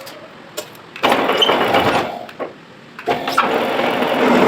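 Manual lathe running and cutting a thread: a harsh, rough noise starts suddenly about a second in, drops away after about a second, and starts again about three seconds in.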